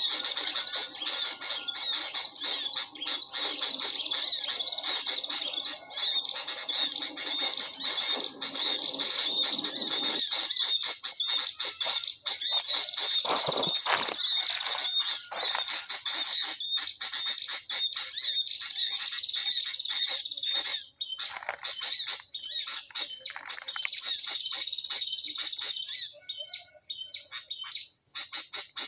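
Dense, continuous high-pitched chirping and twittering of many small birds, thinning out near the end.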